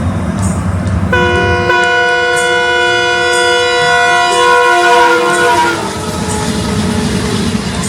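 Alco WDM3A diesel locomotive sounding its multi-note horn for about four seconds, starting about a second in, with the notes sliding down in pitch near the end as it passes. Before and after the horn, the rumble of the locomotive and train running on the track.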